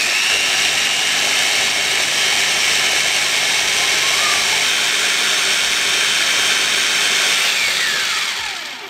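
Mitochiba CH100 electric food chopper running at full speed, its motor whirring steadily as the blades whip cold whipping cream and mango purée to make it rise. Near the end it is released and the whine falls in pitch as the motor spins down.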